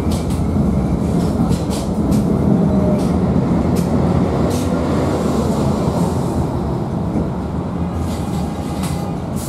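LVS-86K (71-86K) tram running along its track, heard from inside the car: a steady low rumble of wheels and running gear with scattered sharp clicks, easing slightly toward the end.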